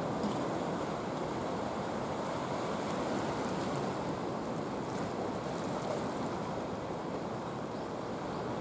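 Steady wash of sea water with some wind.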